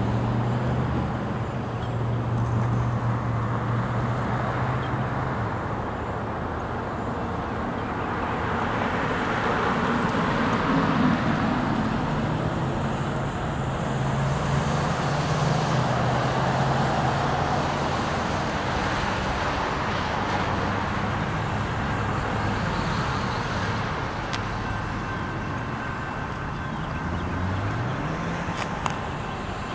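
Road traffic on a multi-lane highway: cars and trucks passing, their tyre and engine noise swelling and fading, with a low engine hum underneath and one vehicle speeding up near the end.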